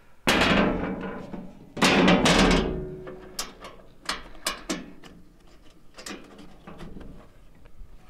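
Two loud metal clanks, each ringing briefly as it dies away, as the sheet-steel blade cover of a Woodland Mills HM126 band sawmill is shut, followed by a run of light clicks and taps on the mill head.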